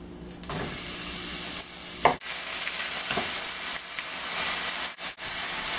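Raw chicken thighs sizzling in hot oil and garlic in a pot, the frying hiss starting about half a second in, with a brief knock about two seconds in.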